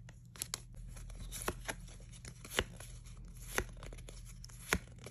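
Crinkly plastic wrapper of a trading-card pack and the cards inside being handled: a faint rustle with a sharp crackle about once a second.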